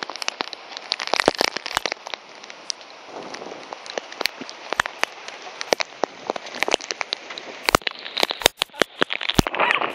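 Heavy thunderstorm rain pouring down steadily, with many sharp ticks of pea-sized hail striking nearby surfaces, thickest near the end.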